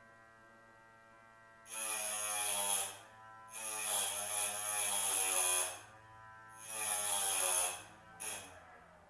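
Small electric piston-ring end-gap grinder running with a steady motor hum, its little grinding wheel cutting the end of a piston ring in three passes of one to two seconds each and a brief touch near the end. The motor's note sags while the wheel bites. It is shaving a few thousandths off the ring to open its end gap toward spec.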